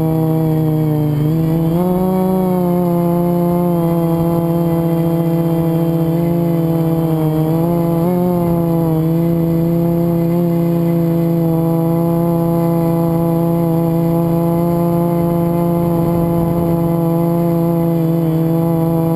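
FPV quadcopter's brushless motors and propellers whining steadily, the pitch rising and dipping with throttle changes about a second in and again around eight seconds. The quad is flying with a bad motor bearing.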